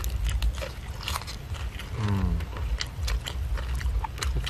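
Crisp, crackling crunches and chewing as a crispy fried chicken drumstick's battered coating is bitten. About two seconds in comes a short, low, falling voice-like sound.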